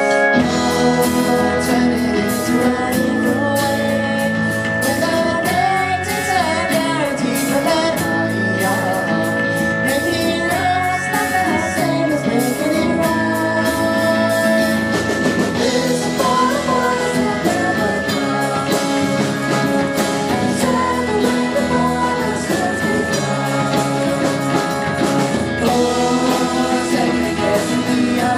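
A live band playing a song, drums, electric guitar and keyboards, with a woman singing lead, heard loud from the crowd.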